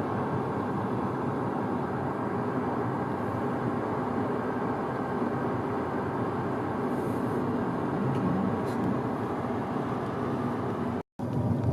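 A car driving, with steady road and engine noise. The sound cuts out for a moment near the end, then resumes.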